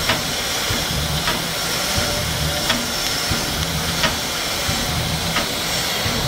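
ČSD class 534.0 steam locomotive standing in steam, hissing steadily. A sharp click comes about every second and a half over a low, uneven pulsing.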